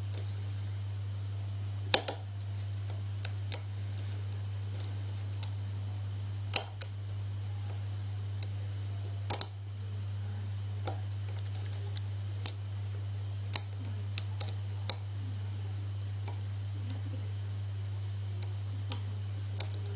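Sharp, irregular clicks of a hook pick working the pins of a 5-pin pin-tumbler lock cylinder, about a dozen in all, over a steady low hum.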